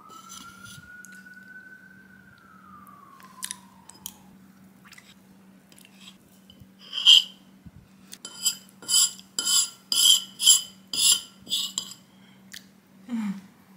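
Metal spoon knocking and scraping on a ceramic saucer as chocolate ganache tart is cut and scooped up. A sharp clink comes about seven seconds in, then a run of quick scrapes, about two a second, for some four seconds.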